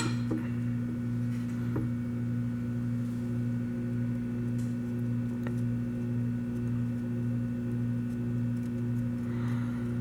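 Soldering station humming steadily while its iron heats up: a low mains-frequency hum with a fainter upper tone that pulses about twice a second. A short click right at the start.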